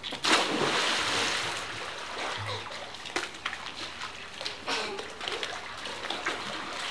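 A child diving off a diving board into a backyard swimming pool: a loud splash just after the start, then the water churning and lapping as it settles over the next few seconds.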